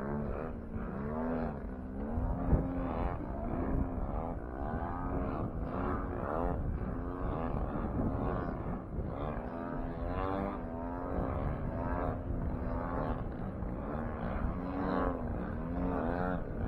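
Radio-controlled model airplane engine and propeller flying overhead, its pitch repeatedly rising and falling as the plane manoeuvres and passes back and forth. A brief knock about two and a half seconds in.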